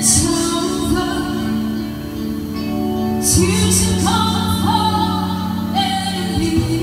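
Live band music: women's voices singing long held notes over guitar accompaniment.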